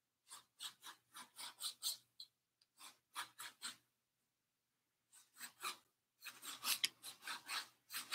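Quick scrubbing strokes of a paintbrush on stretched canvas, about four or five a second, in runs broken by short pauses after about two seconds and again near the middle.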